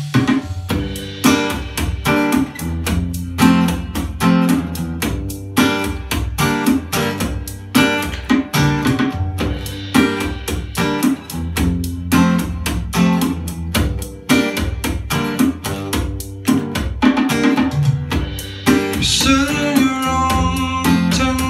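Solo acoustic guitar played with a steady, regular rhythm of picked and strummed strokes.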